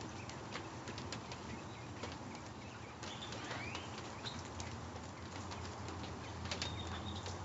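Rain falling and dripping, with many sharp ticks of drops landing close by. A bird calls a few times: a short rising call about halfway through and brief high whistles near the end.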